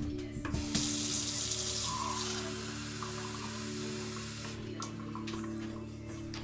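Kitchen tap running water into a measuring cup, starting just under a second in and shut off after about four seconds: a cup of water being measured out. Soft background music underneath.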